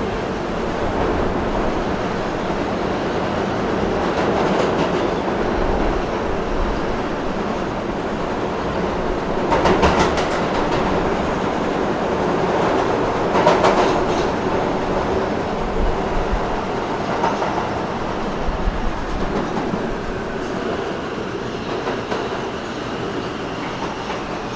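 New York City subway train running at speed, a continuous rumble with the clickety-clack of wheels over rail joints, loudest in two bursts of clacks about ten and thirteen seconds in. A faint high squeal from the wheels comes in near the end.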